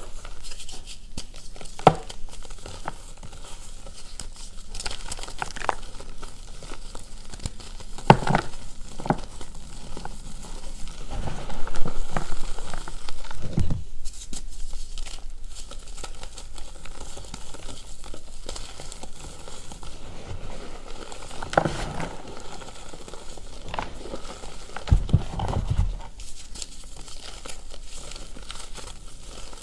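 Hands squeezing and crushing lumps of reformed gym chalk in loose chalk powder: continuous crumbly crackling with frequent sharp crunches as the lumps break, loudest a little before halfway.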